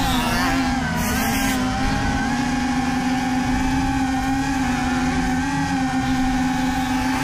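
A motor running at a steady, slightly wavering pitch.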